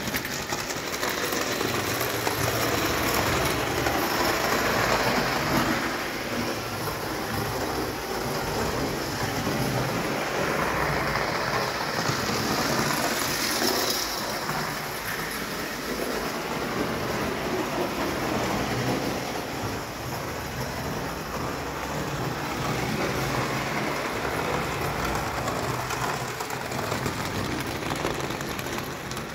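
Antique Märklin 'Storchenbein' tinplate toy locomotive running on 0 gauge track, its mechanism whirring and its wheels rattling on the tinplate rails. The sound swells and eases every few seconds.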